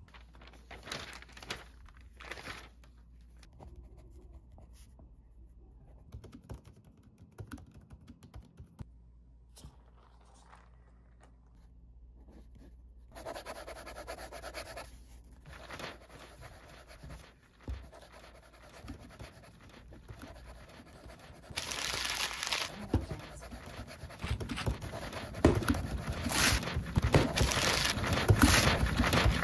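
Paper rustling and a pen scratching on notebook paper, faint at first, then typing on a MacBook's keyboard, the key clicks growing louder and busier over the last several seconds.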